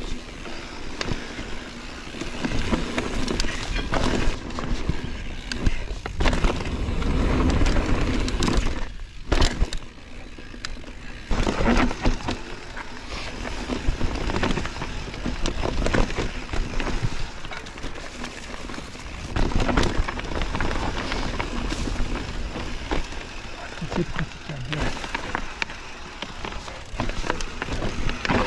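Mountain bike ridden down a forest trail: tyres running over dirt and roots, with the bike rattling and frequent sharp knocks over bumps. It goes briefly quieter about nine seconds in.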